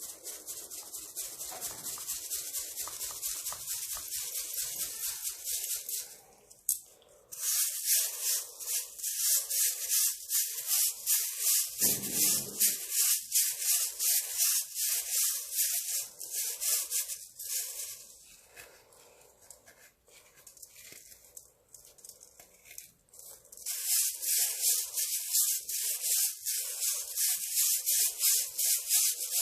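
Slabs of baking soda being crushed: dense, rapid crunching and crackling in two long loud spells, with softer crumbling in between.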